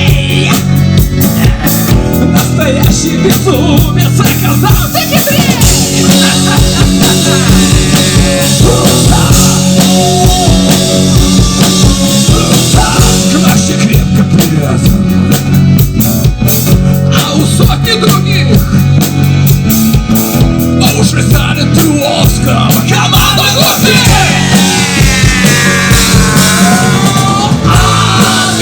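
Rock band playing loud and steady on drum kit and amplified instruments, in a long passage with no clear words sung.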